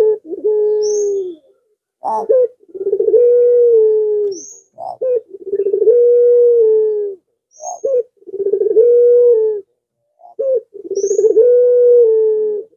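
Puter pelung, a caged Barbary (ringneck) dove, cooing. It gives five calls in a steady rhythm, each a short clipped note followed by a long, level, drawn-out coo, with brief pauses between.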